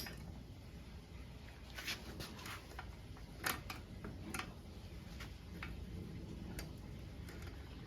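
Scattered light clicks and taps of hand tools on metal, at irregular intervals, over a faint steady room hum.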